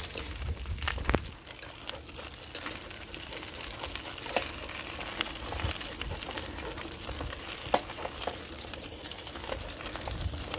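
Footsteps of a person and a leashed dog walking on a gravel road: irregular crunching and small clicks, with a low rumble underneath.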